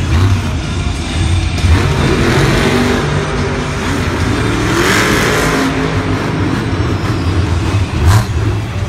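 Monster truck's supercharged V8 revving hard, its pitch rising and falling. There is a sharp bang about eight seconds in.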